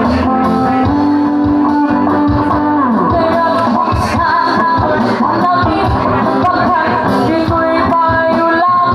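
Live acoustic guitar music with a voice singing over it, including one long held note about a second in.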